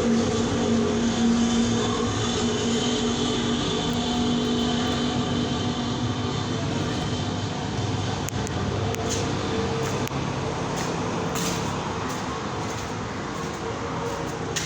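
A machine motor running steadily with a droning hum, with a few faint clicks in the second half.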